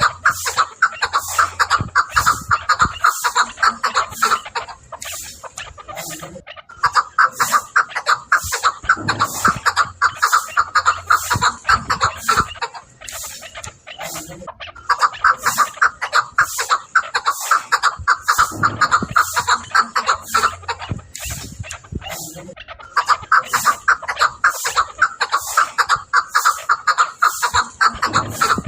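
Chukar partridge calling: four bouts of rapid, repeated clucking notes, each bout about five seconds long with a short pause between.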